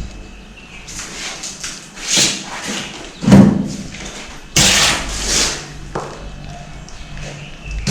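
A series of irregular thumps and knocks in a room, the loudest a heavy thud about three and a half seconds in, followed a second later by a sharp knock that trails into a brief scraping hiss.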